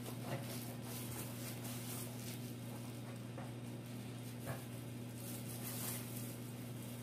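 A knife cutting into the crust of a bread roll on a wooden cutting board, making light, irregular scratchy crackles with a couple of sharper ticks, over a steady low hum.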